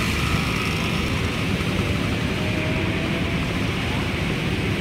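A steady rushing noise with a heavy low rumble and no distinct engine note.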